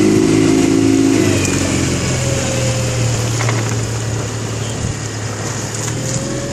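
Small boat's outboard motor running steadily at low speed, a constant engine hum heard from aboard, with wind and water noise.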